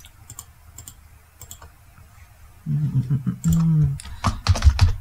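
Computer keyboard typing: a quick run of keystrokes near the end, after a few scattered faint clicks earlier on.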